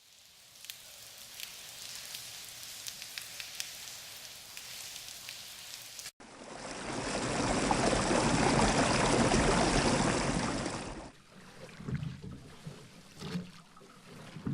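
Running water in three edited-together pieces: a thin, trickling hiss with small clicks, then after an abrupt cut a louder rush that swells and fades over about five seconds, then quieter lapping and splashing near the end.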